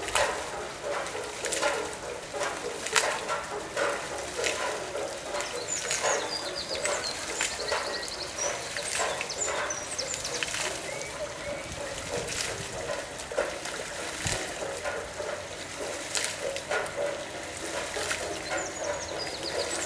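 Water splashing and trickling from a hand-cranked Archimedes screw as it is turned, with irregular clicks and knocks. Small birds chirp a few times, about a third of the way in and again near the end.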